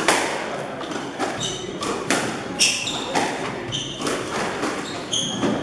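Squash rally: the ball cracking off racquets and the walls about once a second, with shoes squeaking on the wooden court floor.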